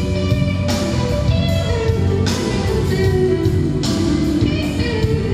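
Loud band music with guitar playing through a concert PA system during a soundcheck, heard at the mixing desk at about 101–103 dBC.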